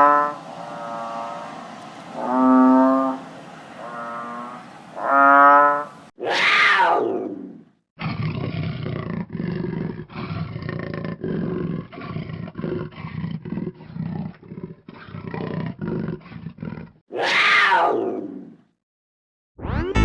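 Cattle mooing several times, then a falling swoosh effect, then a big cat roaring and growling in a run of repeated pulses for about nine seconds, then a second falling swoosh.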